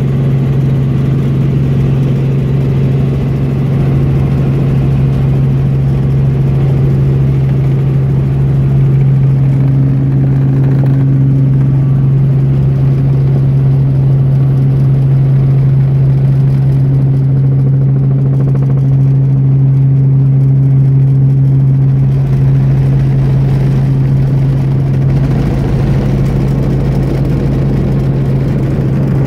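Helicopter in flight, heard from inside the cabin: a loud, steady low drone from the engine and rotors, with a few fainter steady tones above it.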